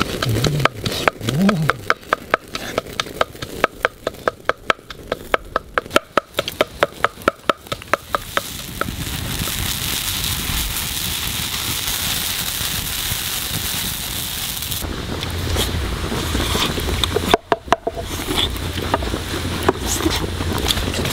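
Wood fire crackling under a wok of broth, with quick sharp pops through the first several seconds, then a steady hiss of the boiling pot and fire.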